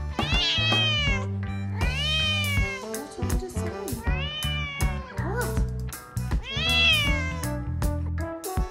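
A cat meowing four times, long drawn-out meows that each rise and then fall in pitch, over background music with a steady beat.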